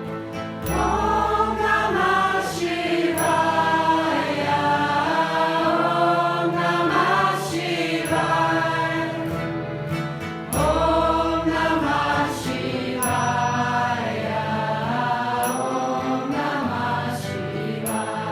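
Kirtan-style mantra chanting: voices singing a repeated devotional phrase over a low sustained drone. The phrase starts over about every ten seconds.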